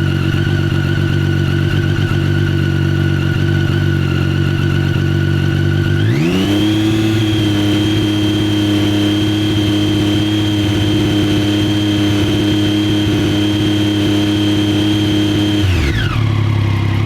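Triumph Street Triple R's 675 cc inline-three engine idling, then revving up about six seconds in to a higher engine speed held steady for about ten seconds, and dropping back to idle near the end. The owner questions whether its idle is irregular or rough.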